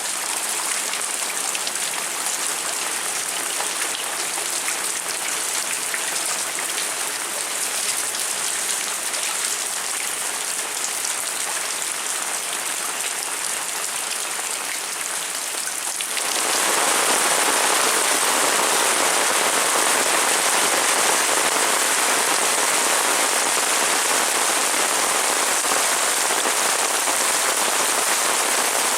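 Heavy rain falling steadily in a dense hiss; just over halfway through it suddenly becomes louder and fuller.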